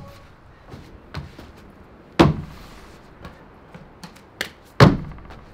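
Feet hitting a timber deck as a freerunner jumps and lands: two heavy landing thuds about two and a half seconds apart, the second the loudest, with lighter footfalls and scuffs between.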